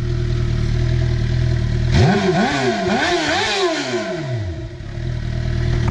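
Car engine idling, then revved in about four quick blips, the pitch rising and falling with each, before it drops back to idle.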